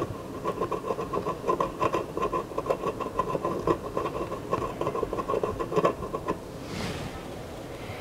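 Soldering iron tip worked back and forth over flux-coated circuit board traces: a rapid scratchy rubbing with a pulsing steady tone, stopping about six seconds in.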